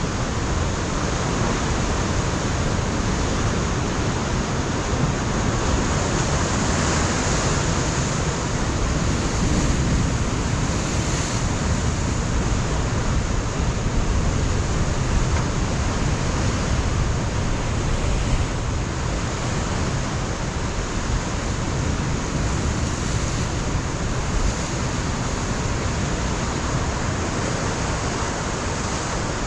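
Pacific Ocean surf breaking against a rocky coastline: a continuous roar of crashing and washing water with a strong low rumble, swelling a little now and then.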